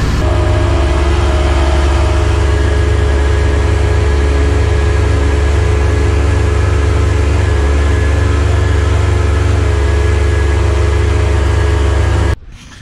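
John Deere tractor engine running steadily under load, pulling a Joskin slurry tanker while spreading slurry through a trailing-shoe boom. A loud, even drone with a deep rumble beneath it. It cuts off suddenly near the end.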